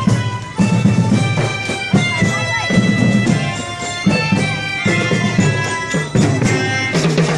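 A marching band of many melodicas playing a tune together in reedy sustained notes, with drums beating underneath.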